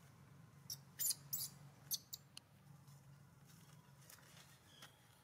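A few short, very high-pitched squeaks from a macaque, bunched within about a second and a half, two of them louder than the rest, over a faint low hum.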